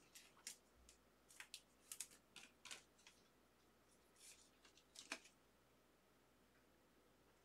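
Faint, quick scratches and clicks of trading cards and a rigid plastic top loader being handled, a dozen or so over the first five seconds, then stopping.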